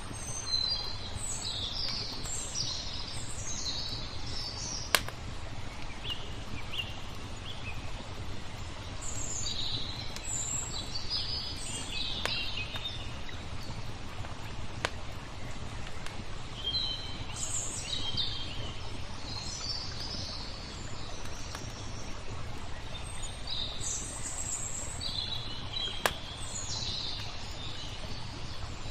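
Small birds chirping in bouts of quick high calls over a steady wash of flowing water. A crackling fire gives two sharp pops, a few seconds in and near the end.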